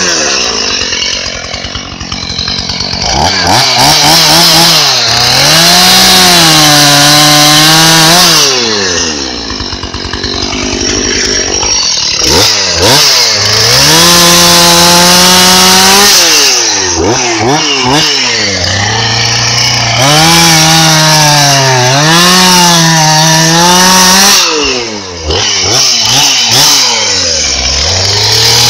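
Chainsaw engine running loud and revved up and down over and over, its pitch climbing, holding, then sinking back toward idle, with a few brief lulls.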